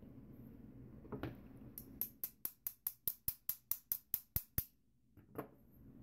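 A quick run of about fourteen sharp metallic taps, about five a second, from a Peterson Wafer Breaker punch being hammered into an American Lock padlock's keyway to punch through the anti-bypass blocking wafer. A duller knock comes about a second in and another near the end.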